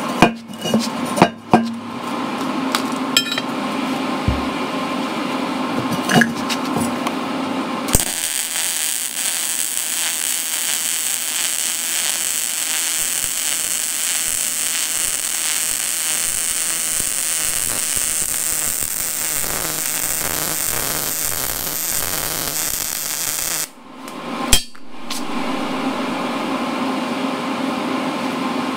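Electric arc welding a steel plate to a cast brake drum: a steady crackling hiss that starts suddenly about eight seconds in and stops abruptly about fifteen seconds later. Before it come a few sharp metallic clinks over a steady hum, and a single knock follows shortly after the arc stops.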